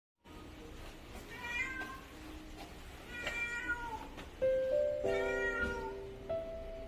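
A domestic cat meowing three times, about two seconds apart.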